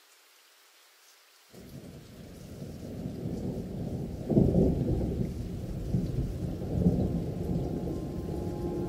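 Thunderstorm sound effect: faint rain hiss, then about one and a half seconds in a low thunder rumble starts suddenly over the rain. It builds to its loudest clap about four seconds in and keeps rolling.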